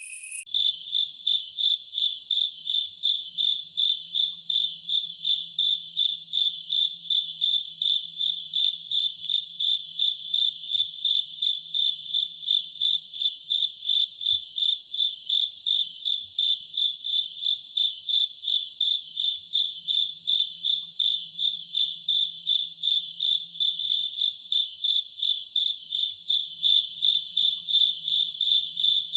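Cricket chirping steadily in an even, unbroken rhythm of about three high-pitched pulses a second.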